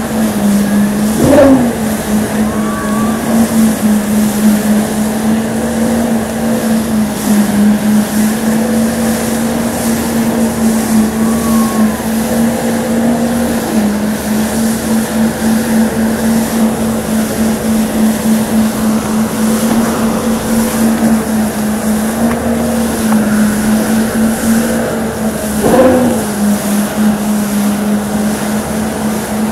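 Motorboat engine running steadily at speed while towing a banana boat, with a steady hum whose pitch wavers briefly twice, about a second in and near the end. Rushing wake water and wind on the microphone run under it.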